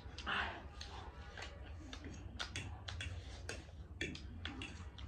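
Irregular light clicks and taps of forks on plates and eating sounds while spicy ramen is eaten, with a brief breathy hiss just after the start and a low steady hum underneath.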